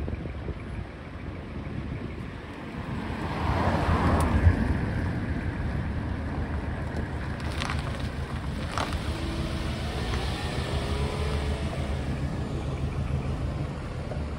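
Vehicles driving slowly past over gravel, with a steady deep rumble from a large truck's diesel engine underneath. The sound swells as one passes close about four seconds in, and there are two sharp clicks around eight seconds in.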